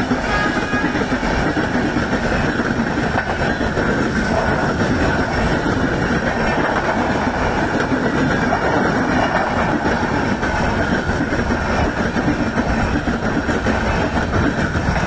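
Express train's passenger coaches passing at speed close by: steel wheels running steadily on the rails, with no let-up.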